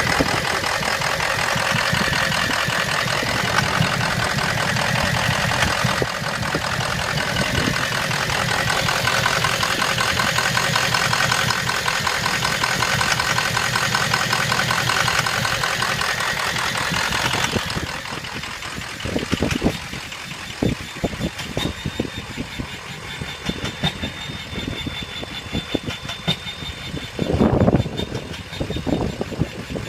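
Ford 6.0 Power Stroke V8 turbodiesel running with a rapid, rhythmic knocking whose cause the owner does not know; he suspects a head gasket or push rod. About two-thirds of the way through, the sound turns quieter and more uneven, with separate knocks and one louder thump near the end.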